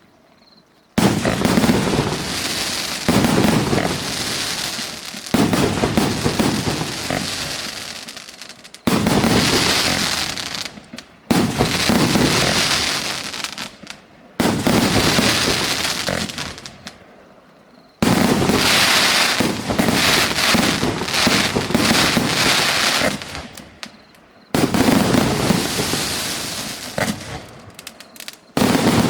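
Consumer display cake fireworks firing shot after shot: each tube launches with a sharp bang and bursts, followed by several seconds of crackling and fizzing from the falling stars, roughly eight or nine shots with short gaps between them.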